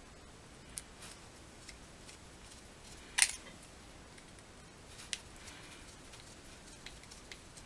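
Small metal parts clicking as the high-speed adjustment needle is fitted into a chainsaw's Tillotson carburetor: a few light clicks, the sharpest about three seconds in, over faint room hiss.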